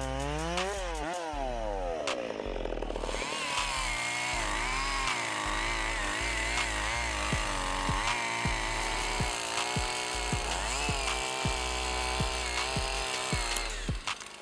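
Two-stroke chainsaw engine running under load while cutting wood. Its pitch drops sharply in the first second, then wavers up and down as the chain bites.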